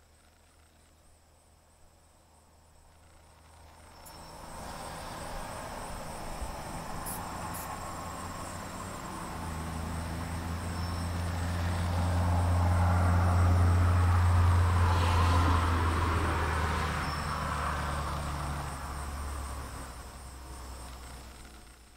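A motor vehicle passing: a low engine hum with road noise builds over several seconds, is loudest around the middle, then fades away.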